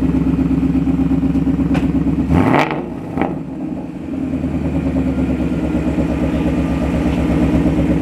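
2020 Ford Mustang GT's 5.0-litre V8 idling through a Roush axle-back exhaust, blipped once about two seconds in. The revs rise quickly and drop, the engine runs quieter for a moment, then settles back to a steady idle.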